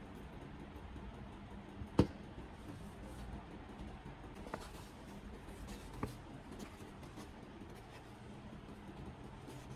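Three short, sharp clicks or knocks of something being handled, the first about two seconds in by far the loudest, over a faint steady hum.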